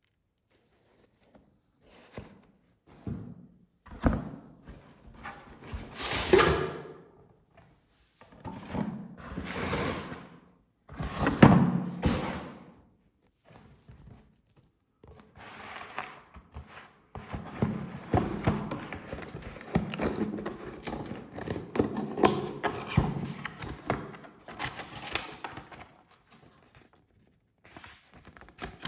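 Hands unpacking purchases: packaging rustling and items knocked and set down with dull thunks, in several short bursts with pauses between, then a longer stretch of steady handling near the end.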